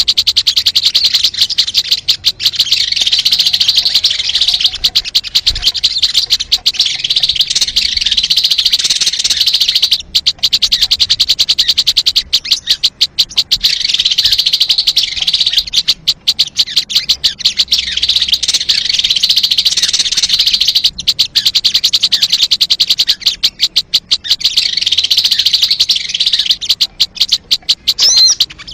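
Recorded sogon bird song used as a trapping lure: rapid, continuous high-pitched chattering notes, broken by short pauses about 10, 16 and 24 seconds in.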